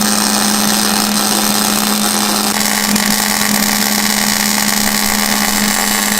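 Electric welding arc running steadily, a loud even hiss with a low steady hum underneath, shifting slightly in tone about two and a half seconds in.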